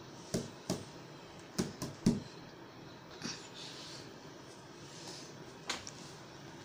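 A handful of light knocks and taps from a person shifting and creeping on knees and hands across a tiled floor, about five close together in the first two seconds, then a couple of fainter ones later, over quiet room tone.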